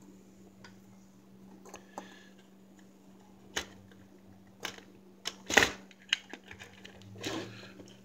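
Scattered small plastic clicks and knocks as a network cable's modular plug is fumbled into a socket on a circuit board one-handed, the loudest click a little past halfway. A faint steady hum lies underneath.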